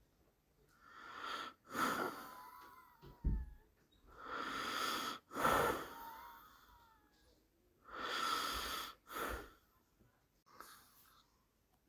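Slow, steady snoring: three breath cycles about three and a half seconds apart, each a longer snoring breath followed by a short, sharper one, then a fainter breath near the end.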